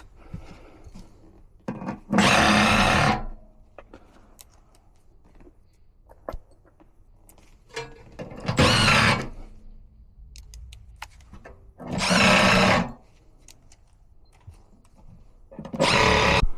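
Cordless drill-driver running in four short bursts of about a second each, with light handling clatter between them.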